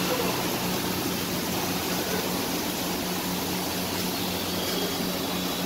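Steady rushing noise with a constant low hum.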